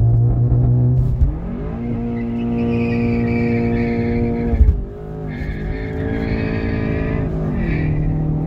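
Stage 2 tuned Audi A3 launched hard with the wheels spinning on worn-out tyres. The engine revs climb and hold high while the tyres squeal, then shift up about halfway through and again near the end, spinning the wheels into third gear.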